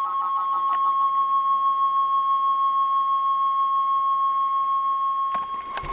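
A loud, steady, high-pitched electronic beep tone, like a long bleep. It wavers slightly in the first second, then holds steady. Sharp crackling clicks break in near the end.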